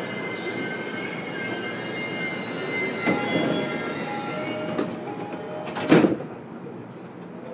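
Running sound inside a JR East E233 series motor car: steady rail rumble with the thin whine of the traction motors and some wheel squeal. About six seconds in comes one loud sharp burst, after which the rumble is quieter.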